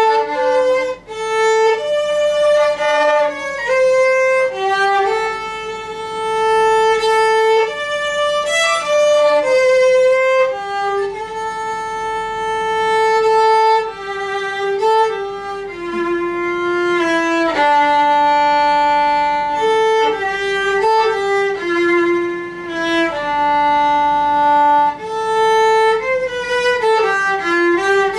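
Solo violin playing a slow, lyrical melody of long held notes, sliding smoothly from one note to the next.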